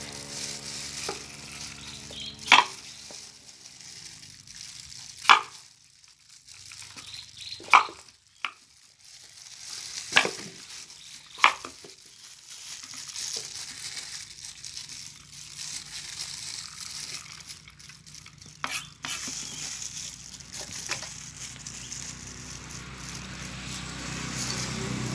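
Kitchen-knife work on a halved papaya: crackly scraping and rustling, broken by about six sharp knocks spread over the first two-thirds, as the blade strikes through the fruit.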